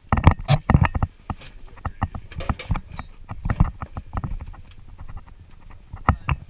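Close camera-handling noise: irregular knocks, bumps and clothing rustle as a passenger climbs out of a race car's bucket seat, busiest in the first second.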